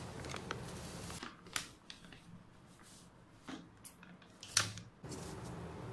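A plastic flour packet rustling and crinkling as flour is tipped into a plastic measuring cup over a stainless steel bowl, with a few sharp clicks and taps, the loudest near the end.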